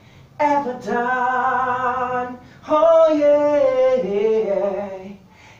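A man singing unaccompanied in two long, held phrases with a short breath between them. The second phrase steps down in pitch towards its end.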